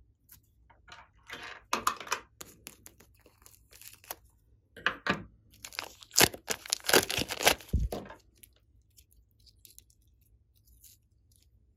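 Plastic piping bag full of slime crinkling and tearing as it is squeezed and pulled open, with the slime squishing; the loudest crackling comes about six to eight seconds in, then only faint sticky ticks as the slime is stretched.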